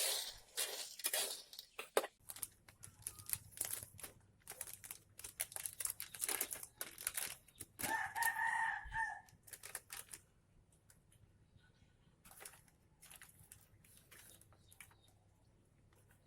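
A rapid run of sharp clicks and rustles, like things being handled, dies down after about ten seconds to scattered faint clicks over a low hum. About eight seconds in, a chicken gives a short call of about a second.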